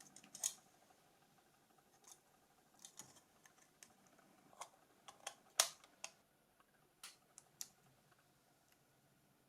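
Scattered light clicks and taps of small plastic phone parts being handled and fitted together during reassembly of a Nokia 5510, irregularly spaced, the loudest click a little past halfway.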